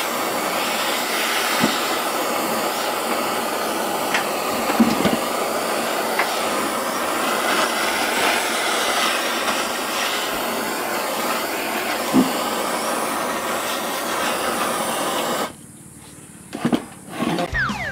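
Butane cartridge blowtorch flame hissing steadily as it scorches the carved wood surface, with a few faint clicks. The hiss cuts off suddenly about fifteen seconds in.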